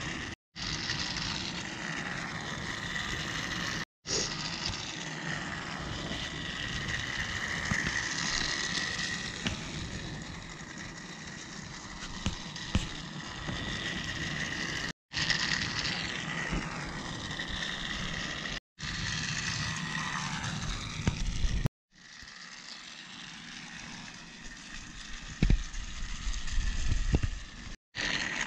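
Battery-powered Trackmaster toy trains running on plastic track: a steady motor whir with wheel rattle, the whine falling at times as an engine passes close, broken by several abrupt cuts. Near the end it is quieter, with a few thumps.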